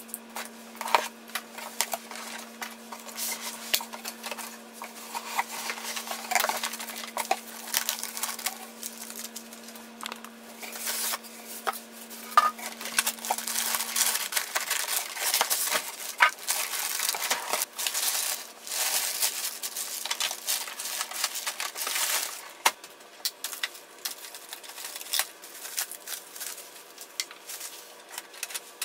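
Packaging being handled during an unboxing: a cardboard box opened, a plastic bag rustling and crinkling as it is pulled off, and polystyrene packing moved, with many scattered clicks and knocks.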